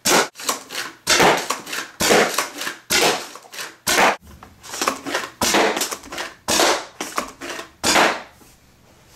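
Homemade PVC pump-action Nerf blaster (a PumpSNAP with a K26 spring and 7 inches of draw) being primed and fired again and again: a quick series of loud clacks and thunks from the pump sliding and the plunger slamming forward, about one shot a second. The shots stop about eight seconds in.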